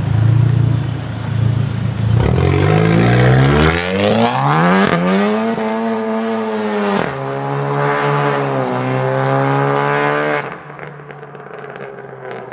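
Sports car engine and exhaust accelerating hard from a low rumble. The note climbs in pitch, breaking at gear changes about five and seven seconds in, then holds high until it cuts off suddenly near the end.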